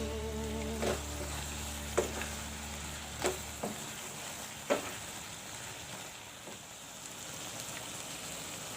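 Chicken, sauces and mustard greens stir-frying in a pan, with a steady sizzle. A spatula knocks against the pan five times in the first five seconds; the knock about two seconds in is the loudest.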